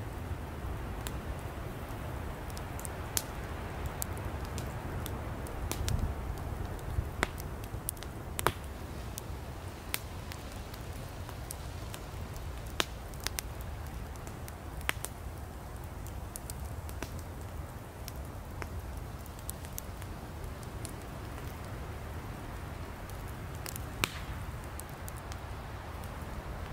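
Wood campfire burning: a steady low rumble of flames with scattered sharp crackles and pops from the firewood, a few of them louder.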